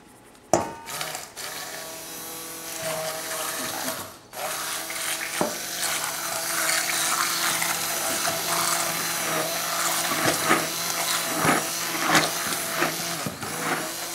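Electric immersion (stick) blender running in a metal saucepan, mixing flour into the egg batter. It switches on about half a second in, cuts out briefly around four seconds, then runs steadily with a few sharp knocks.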